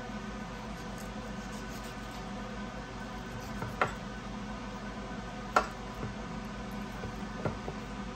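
A few short knocks of a knife and raw chicken against a wooden cutting board while breast meat is cut from the carcass, the sharpest one about halfway through, over a steady hum.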